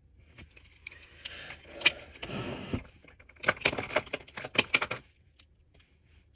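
Small plastic makeup items being handled and sorted on a tabletop: scattered clicks and light rattles, a rustling stretch about two seconds in, then a quick flurry of clicks.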